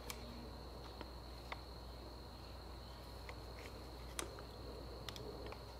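Quiet workshop room tone: a steady faint high-pitched whine and low hum, with a handful of light scattered clicks and taps from the inspection camera's probe and cable being worked in the spark plug hole.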